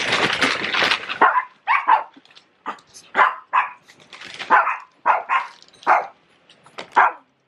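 Small Shih Tzu-type dogs barking, about ten short, sharp barks spread over several seconds, excited at a treat bag held up above them. The first second is a close rustle of fur brushing against the microphone.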